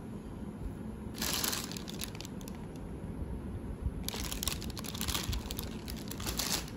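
Thin plastic bag wrapped around a takeaway drink cup crinkling as it is picked up and handled: a short burst about a second in, then a longer stretch of crinkling from about four seconds in until near the end.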